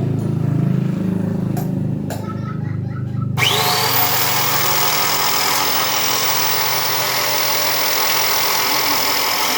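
A 4-inch angle grinder driving a jade-cutting rig switches on about three and a half seconds in. Its whine rises quickly as the motor spins up, then it runs at a steady high pitch. Before that there is a low hum and a couple of clicks.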